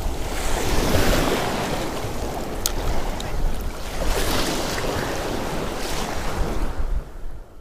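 Shallow bay surf washing and breaking around a wading angler, with wind buffeting the microphone; one sharp click about a third of the way in, and the sound fades out near the end.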